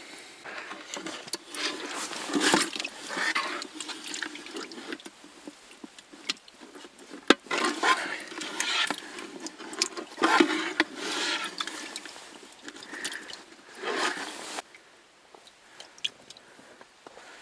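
Irregular splashing and scraping of water and slush being handled at a hole in the river ice, with one sharp click about seven seconds in; it dies down near the end.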